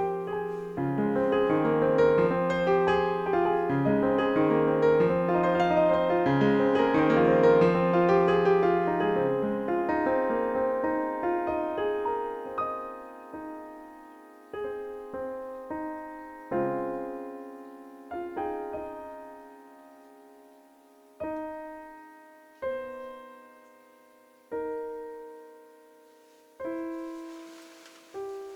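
Solo piano music: full, dense playing for about the first ten seconds, then thinning to single notes and chords, each left to ring and fade, further apart toward the end.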